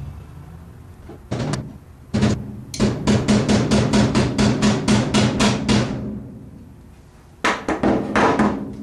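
Small hammer tapping a steel detent pin into its hole at the AK-pattern muzzle threads, metal on metal. A few single taps, then a quick even run of about fifteen taps at roughly five a second, then a short burst of taps near the end.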